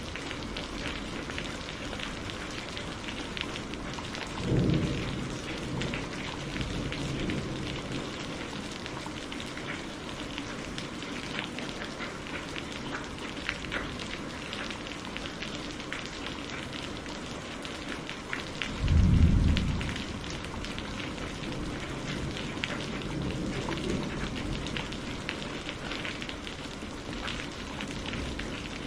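Steady rain falling, with dense pattering drops, and two short low rolls of thunder: one about four seconds in and a louder one about two-thirds of the way through.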